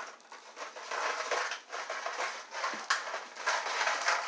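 Irregular crinkling, knocking and scraping of a plastic water bottle with dry dog kibble inside as a raccoon handles it on a hard floor, with a sharper click about three seconds in.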